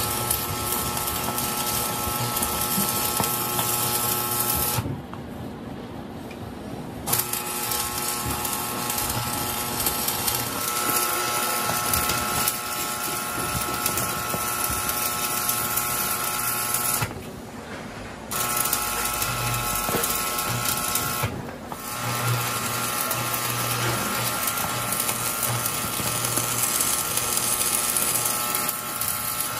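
Stick-welding arc crackling and buzzing steadily as the spindle joint of a steel truck axle is welded. The arc breaks off for about two seconds about five seconds in, for about a second after about seventeen seconds, and briefly a little after twenty-one seconds.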